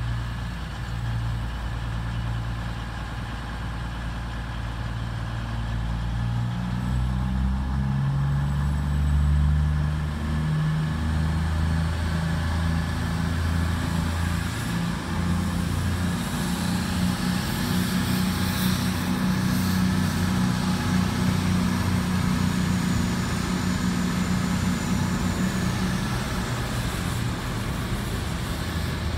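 Class 60 diesel locomotive's Mirrlees eight-cylinder engine working as it approaches at the head of a freight train. Its engine note steps up in pitch about a third of the way in, then holds steady as it draws nearer.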